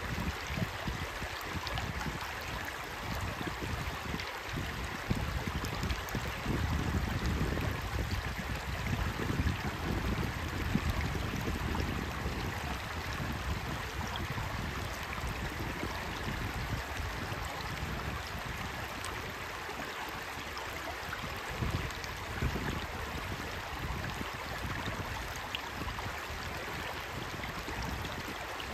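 Shallow rocky stream flowing and babbling over and around stones, a steady, continuous rush of water.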